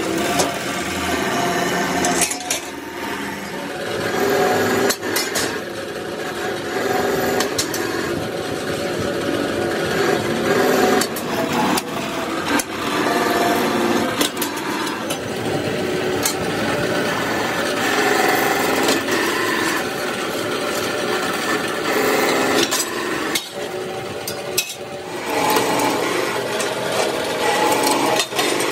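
Factory workshop noise of power tools and machinery working metal, a shifting hum over a noisy background, broken by scattered sharp knocks and clicks.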